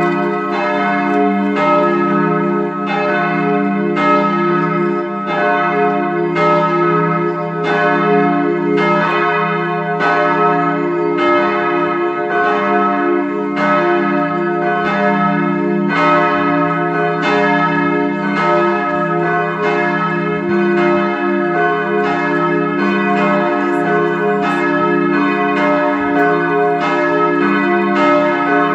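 Steel church bells cast by the Bochumer Verein, swinging and ringing together in a full peal. Strokes come in a steady, overlapping run, about one every two-thirds of a second, and their humming tones carry on between strikes.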